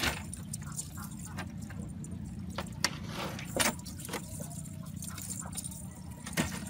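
Fishing net and a large fish being handled against the hull of a small boat: a few sharp knocks and clicks, over a steady low hum.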